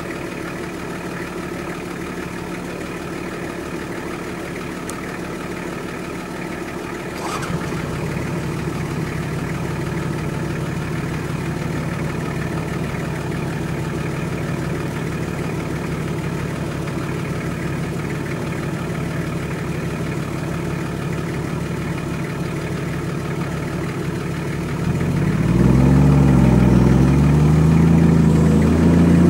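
Off-road 4x4 engine running steadily under load. About seven seconds in it steps up in level and pitch with a brief click. Near the end it gets louder, its pitch rising and falling as it revs.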